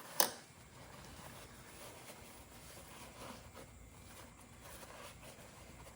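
A single sharp click near the start, then faint rustling and small handling noises as a rag is stuffed into the open crankcase of a two-stroke dirt bike engine.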